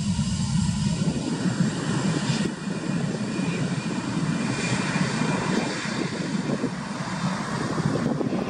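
Steady jet engine noise from airliners on the runway: a Boeing 777-200ER's Rolls-Royce Trent 892 turbofans, joined by a nearer taxiing airliner passing in front. The sound changes about a second in, thinning at the bottom and filling out higher up.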